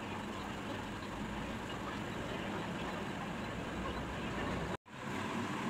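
Steady background noise with no distinct event in it, cutting out to silence for an instant near the end.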